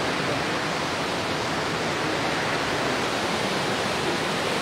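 Fast brown floodwater from a breached river levee rushing past buildings in a steady, unbroken rush of water noise.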